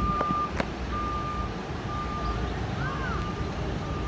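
Vehicle backup alarm beeping: a steady, high single-tone beep about once a second. Two sharp clicks come in the first second.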